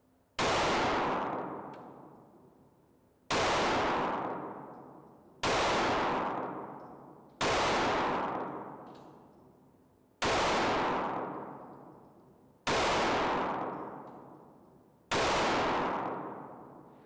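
Springfield Armory Hellcat 9mm pistol fired seven times at a slow, deliberate pace, about two to three seconds apart. Each shot is a sharp crack followed by a long echoing decay in an indoor shooting range.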